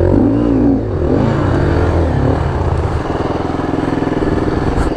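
Dirt bike engine revving up and down in quick blips, then running more steadily at lower revs for the last couple of seconds, as the bike sits stuck in mud.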